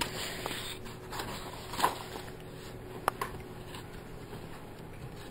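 Paper pages of a colouring pad being handled and turned by hand: a few soft rustles and a sharp tap about three seconds in.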